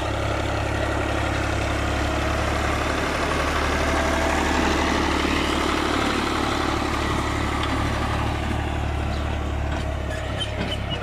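New Holland Ghazi tractor's diesel engine running steadily while pulling a disc harrow. The harrow puts hardly any load on the engine.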